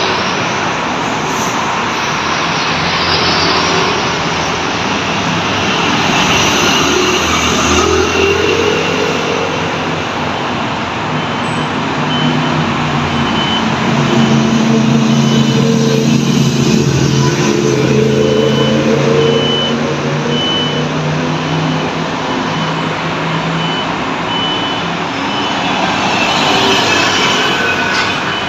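City street traffic: scooters and cars passing through an intersection, their engines and tyres making a steady hum. A deeper engine drone swells and fades through the middle. A faint high beep repeats evenly through the second half.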